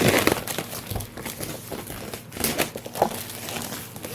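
Packaging being opened and handled by hand: plastic wrap and cardboard crinkling and rustling, with several sharp crackles and clicks.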